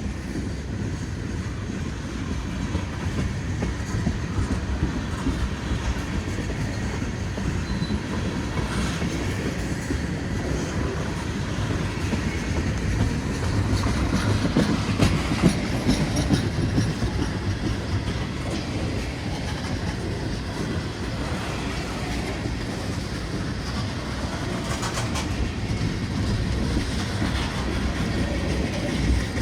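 Cars of a long CSX mixed freight train rolling past, steel wheels clattering over the rail joints with a steady rumble and scattered sharp clacks.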